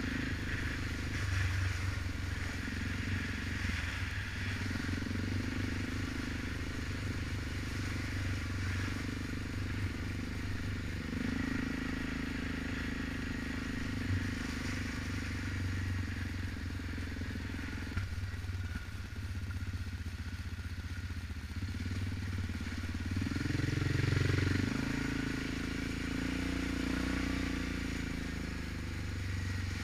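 Single-cylinder four-stroke ATV engine running under way on a dirt trail. Its note rises and falls with the throttle and swells louder a little past two-thirds of the way through.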